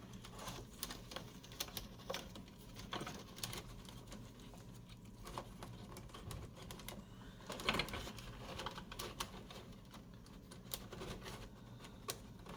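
Faint, irregular light clicks and taps of small parts being handled and fitted by hand, with a slightly louder knock about eight seconds in.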